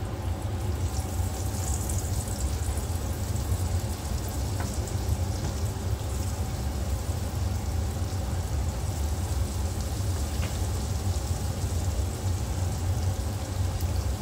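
Arepa dough frying in a pan of hot oil: a steady sizzle and crackle, over a steady low hum.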